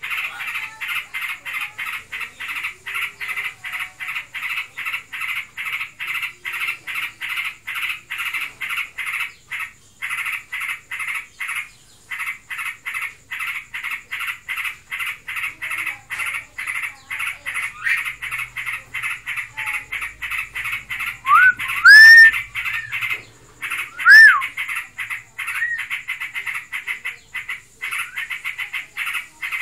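A steady pulsed calling, about three or four short notes a second, runs throughout. Over it, a yellow-vented bulbul gives loud, clear rising whistled notes about 22 seconds in and again about 24 seconds in.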